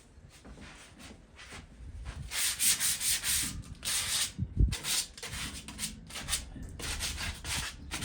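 Sandpaper scrubbed by hand over a rusty metal patio chair to take off surface rust: a run of quick back-and-forth strokes starting about two seconds in. There is a dull knock near the middle.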